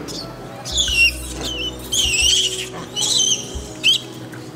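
Monkeys squealing: four high-pitched, wavering squeals, each about half a second long, over faint background music.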